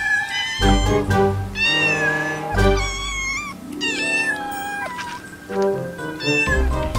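Kittens meowing over and over, high calls that rise and fall, some short and one longer, over background music.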